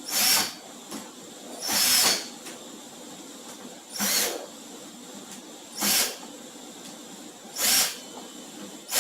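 Cordless screwdriver run in five short bursts, about one every two seconds, driving the screws that close the drill's housing.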